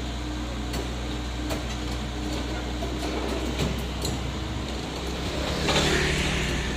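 Komatsu PC78UU mini excavator's diesel engine running under load as it drives and lifts itself onto a truck, a steady drone with light clanks, and a louder hissing rush a little under six seconds in.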